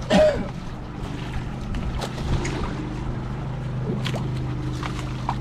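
Boat engine running steadily, a low even hum. A short loud sound falling in pitch comes right at the start, and a few sharp clicks follow later.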